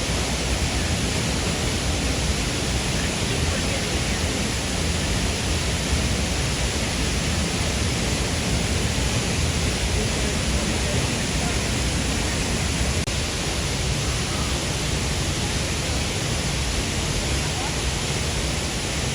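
Waterfall with water crashing down, a loud, steady rushing noise without a break.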